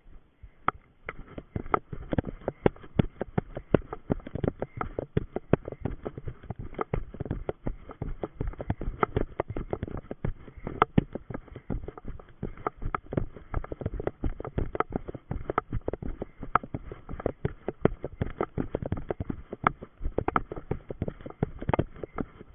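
Running footfalls through forest undergrowth, with plants brushing past, in a quick, irregular train of thumps. They start about a second in, after a short quiet moment.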